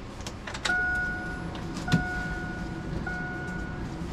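Electronic vehicle warning chime, the 2002 Chevy Tahoe's, beeping at a steady pitch: three beeps just under a second long, about a second and a quarter apart. A sharp knock about two seconds in.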